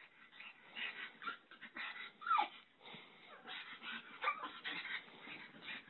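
A pug whining as it rolls and twists on a bed, against a run of short rustling noises. The loudest sound is a falling whine about two seconds in, with a shorter one around four seconds.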